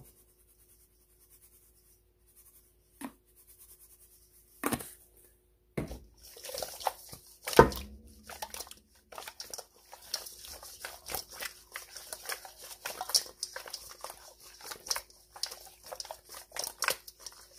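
A few light taps of a spice shaker, then, from about six seconds in, raw quail pieces tossed around in a stainless steel mixing bowl: busy slapping and squishing of meat, with knocks against the metal, the loudest about seven and a half seconds in.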